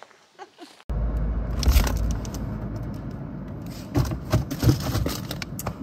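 Items being moved around in a refrigerator while searching it, with scraping and several sharp knocks of containers over a steady low rumble.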